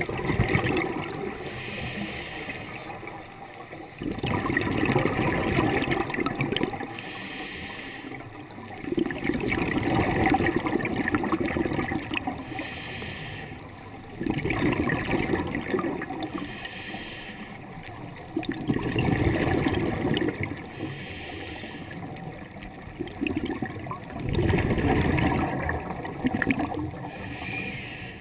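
Scuba diver's regulator breathing underwater: six bubbling rushes of exhaled air, about every five seconds, each lasting two to three seconds, with a quieter hiss between them.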